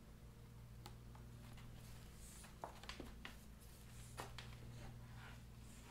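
Near silence: a few faint clicks and rustles of hands pressing a thin plastic strip into the groove of a bunk board, over a low steady hum.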